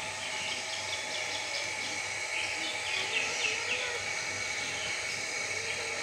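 Many birds chirping together, a steady run of short high chirps that keeps going throughout, with a faint lower call in the middle.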